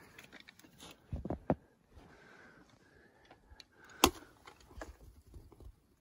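A snow shovel scooping and shifting deep fresh snow: soft crunches and thumps, with two firmer knocks a little over a second in and one sharp knock about four seconds in.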